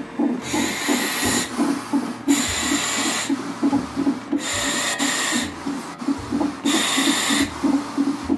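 Gas-and-air (nitrous oxide) demand valve hissing with a slight whistle in a run of breaths, each about a second long, as she inhales through the mouthpiece during a contraction. Under it runs the steady fast pulse of the fetal heartbeat from the CTG monitor.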